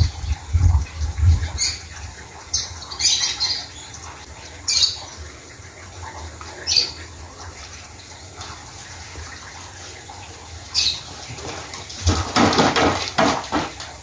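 Scattered short, high chirps, like birds calling. About twelve seconds in comes a louder rattling scrape lasting a second or so, as a wheeled cart is taken by its handle and moved.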